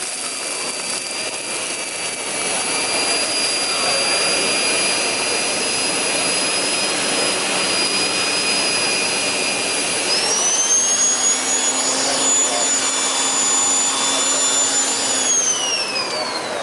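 Numatic Henry Petcare canister vacuum running with a steady high whine as it vacuums. About ten seconds in the whine rises in pitch and holds. Near the end it falls steadily away as the motor winds down.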